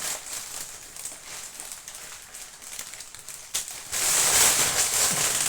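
Plastic shopping bag rustling and crinkling as groceries are taken out of it, with a single knock about three and a half seconds in and louder crinkling from about four seconds on.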